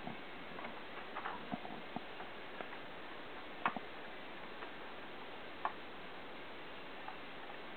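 Scattered light clicks and taps of plastic Lego pieces being handled: several in the first two seconds, then a few single ones spaced well apart, over a steady hiss.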